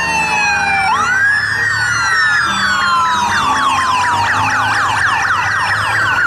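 Several electronic sirens sounding at once. Slow rising-and-falling wails overlap a fast yelp of quick downward sweeps, several per second, which runs through the middle stretch.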